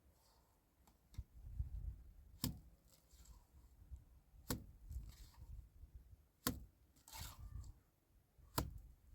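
Sharp knocks, four of them, evenly spaced about two seconds apart, over a faint low rumble.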